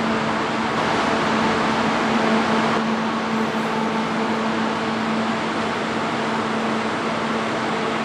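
Kintetsu 30000 series Vista EX express train moving slowly alongside the platform: steady running noise with a constant low hum.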